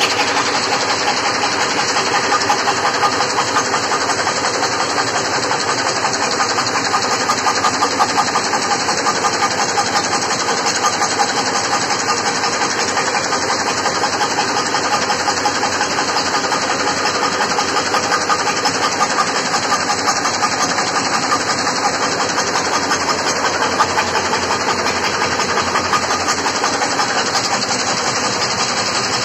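Wire nail making machine running at speed, with its flywheel spinning: a loud, steady, fast mechanical clatter from the machine's repeated strokes as it cuts and heads nails from coiled wire.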